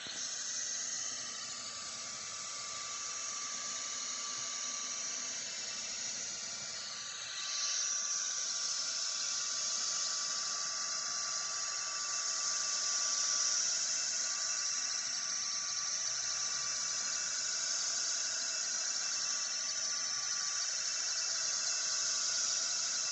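Sculpfun S30 Pro diode laser engraver running a job on plywood: a steady hiss of fan and air with a thin, steady high whine through it. The hiss gets louder about a third of the way in and stays there.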